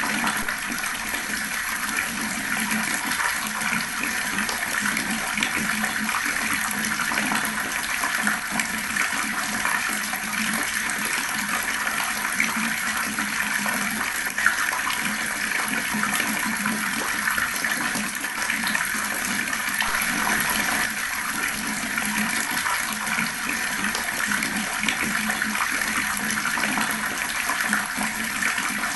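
Fast-flowing water running steadily, an even continuous splashing hiss that does not change.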